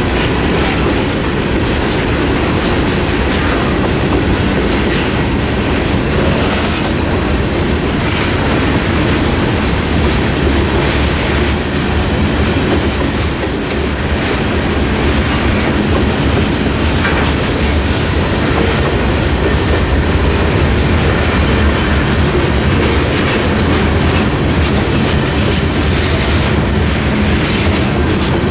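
Freight train cars rolling past, a steady loud rumble and clatter of steel wheels on the rails.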